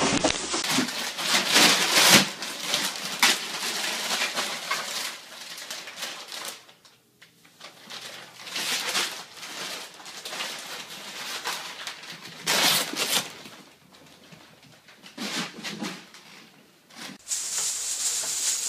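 A plastic bag rustling and crinkling in repeated bursts as a cat struggles about with its head inside it, with quieter gaps in between.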